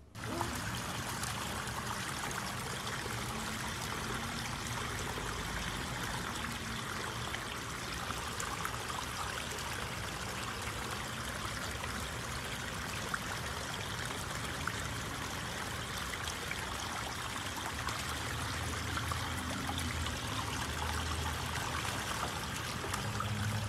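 Small garden pond waterfall running steadily, water trickling over stacked stones into the pond.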